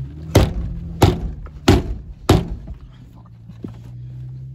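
Four heavy thuds about two-thirds of a second apart: a muddy boot knocking against a Jeep Cherokee's door sill, over the low steady hum of the idling engine.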